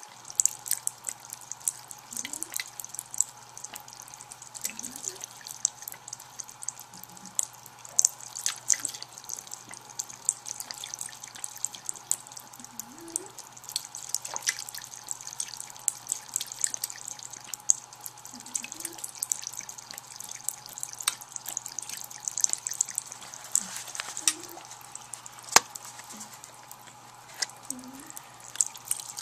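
A thin stream of water from a bathroom sink faucet trickling and splashing into the basin, with many sharp, irregular clicks as a cat laps at the running stream.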